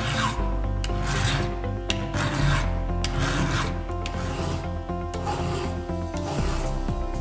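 Hand file rasping across chainsaw chain cutters in slow, even strokes, about one a second, with background music under it.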